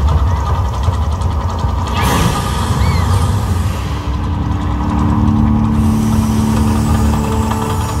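Mirage volcano attraction erupting, with a loud, steady deep rumble from its fire jets and effects. A brighter rushing sound starts about two seconds in, and a steady low droning tone joins about halfway through.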